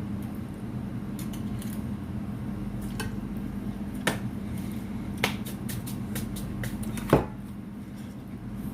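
Cutlery clinking and scraping against plates while eating, a few sharp clinks, the loudest near the end, over a steady low hum.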